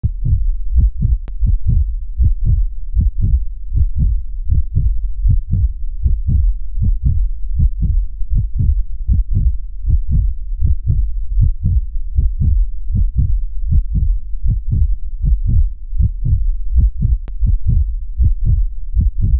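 Heartbeat sound effect: low, muffled thumps in a steady, even rhythm, about two to three a second.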